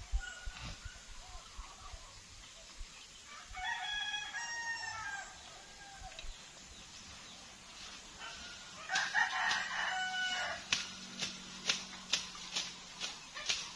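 A rooster crows twice, about four seconds in and again around nine seconds. Near the end come sharp strokes about twice a second: a bolo slashing through cogon grass.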